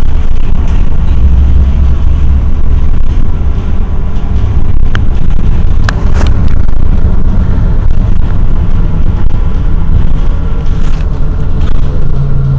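Irizar i2e battery-electric bus standing still, its on-board equipment giving a steady, loud low hum with faint steady whining tones above it. Two short sharp sounds come about five and six seconds in.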